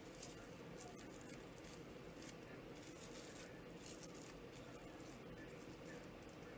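Faint, scattered rustling of raffia being worked and pulled through a small wooden bead by hand, over a low steady room hum.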